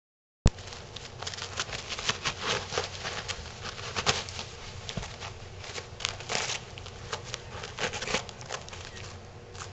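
Paper tearing and rustling as a cat shreds a roll of paper with its teeth and claws: many irregular crackles and rips. It starts abruptly with a sharp click about half a second in.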